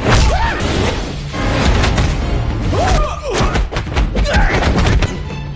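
Martial-arts fight scene soundtrack: music under a rapid run of punch and kick impacts, with short yells that rise and fall in pitch.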